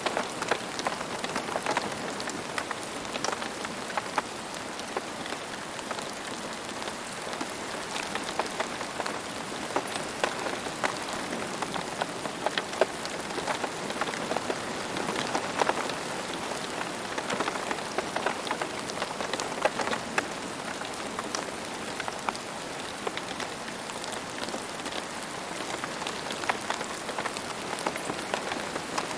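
Steady rain falling on a hard surface, an even hiss with many distinct drop ticks and splats scattered through it.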